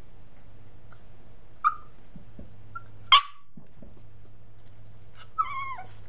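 Jack Russell puppy barking at its own reflection in a mirror: a short yip about one and a half seconds in, a loud sharp bark about three seconds in, and a longer yelp that falls in pitch near the end.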